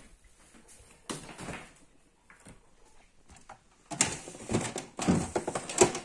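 Refrigerator being opened and its plastic crisper drawer handled: a short clatter about a second in, then a run of plastic knocks and rustling from about four seconds in as things inside are moved.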